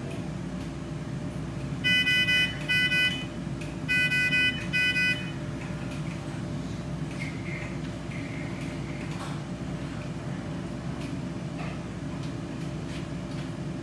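Pulse oximeter monitor alarm beeping: two pairs of short, high electronic beeps about two seconds apart, over a steady low hum of the room's equipment.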